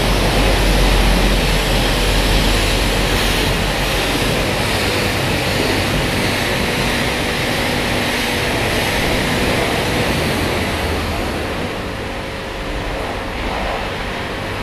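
High-pressure water jet from a self-service car-wash lance hissing and spattering on a motorcycle and the wet concrete floor, with a steady hum under it; it softens about three-quarters of the way through.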